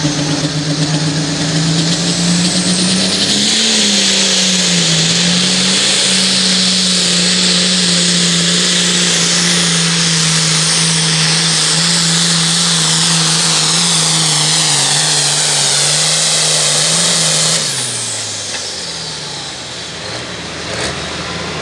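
International 3688 Super Farm pulling tractor's turbocharged diesel engine running at high revs under full load down the pulling track, with a brief dip in pitch about four seconds in. Near the end the revs fall away and the engine winds down as the pull finishes.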